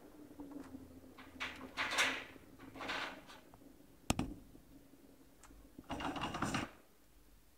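Indian ringneck parrots moving about in wire cages: several short rustles and scrapes, one sharp click about four seconds in and a longer rustle near the end, over a low hum that stops about halfway.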